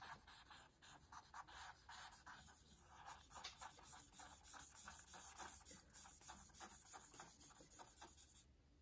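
Faint scratching of a charcoal stick across sketchbook paper in quick back-and-forth shading strokes. The strokes stop near the end.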